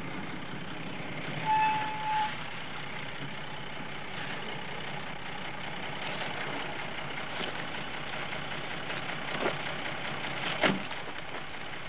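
Steady running noise of a truck's engine and tyres on a rough road. A short high tone sounds about a second and a half in, and two sharp knocks come near the end.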